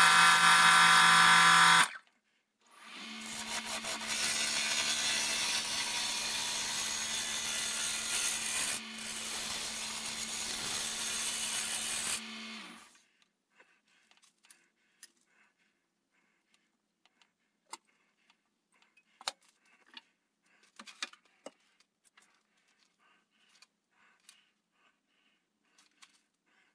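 A loud motor whine stops about two seconds in. A woodworking power tool then starts, runs with a steady hum and a hissing cut through wood for about ten seconds, and winds down. Faint scattered clicks and taps follow.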